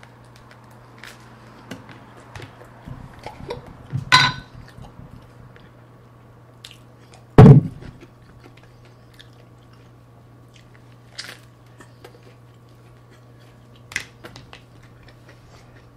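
A person chewing and biting into a burger topped with raw soybean sprouts, close to the microphone: soft, irregular mouth clicks and crunches. A single loud thump comes about seven and a half seconds in.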